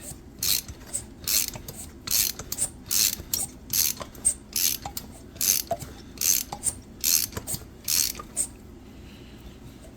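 McCulloch 5-10E chainsaw engine being cranked over by hand: a steady series of sharp ratcheting clicks, about two a second, that stops near the end. It turns over really rough, the engine having been seized solid, with crunchy bearings.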